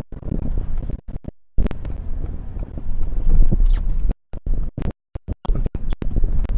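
Pickup truck plowing snow: the engine runs under a heavy low rumble, with scraping and rushing noise from the plow work, and the sound cuts out abruptly several times.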